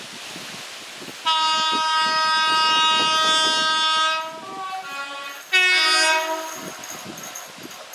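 Class 360 electric multiple unit sounding its two-tone horn as a warning on approach to a foot crossing: a long note of about three seconds, then shorter notes in a lower tone, the last of them loud.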